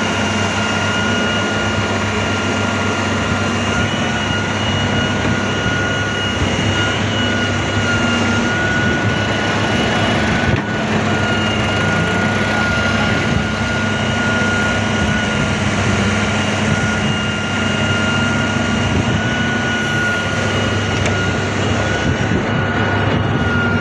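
Excavator running steadily: an unbroken engine drone with a steady high-pitched whine over it.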